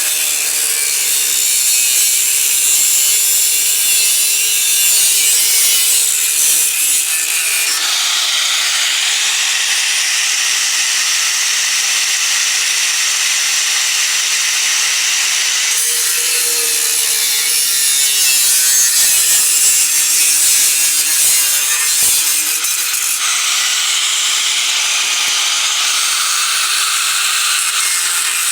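Die grinder with a small wire wheel running continuously under load, scrubbing rust off steel panel pieces. Its scratchy sound shifts several times as the wheel is worked over the metal.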